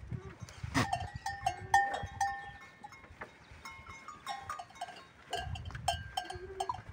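Goats bleating several times, with short bell-like clinks and sharp clacks among them as the herd moves.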